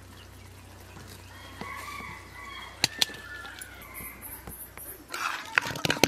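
Domestic fowl calling a few times in the background, with two sharp knocks a little before halfway. Near the end a metal ladle clatters and scrapes in a metal kadai of curry.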